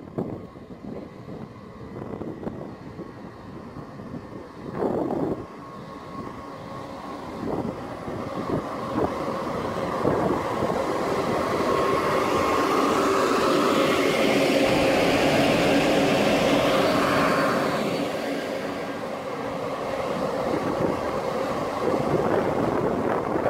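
EU07A electric locomotive and its passenger coaches pulling in alongside the platform. The running noise grows louder as the train passes, with steady whining tones, then eases as it slows to a stop. A brief loud burst about five seconds in.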